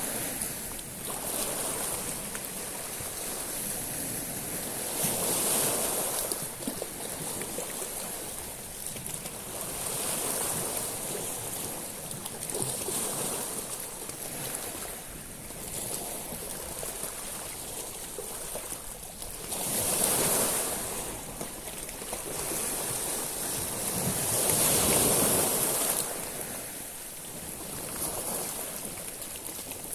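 Sea waves breaking on a shingle beach of small stones, each surge hissing up over the pebbles. The waves come in swells about every five seconds, with the biggest two in the last third.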